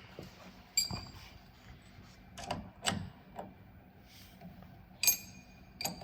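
Scattered metal clicks and knocks of hand tools working on an exercise bike's crank arm and nut, with two sharper clinks that ring on briefly, about a second in and near the end.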